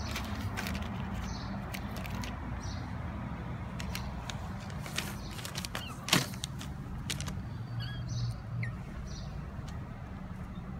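Steady low background hum, like distant traffic, with scattered light clicks and one sharp click about six seconds in.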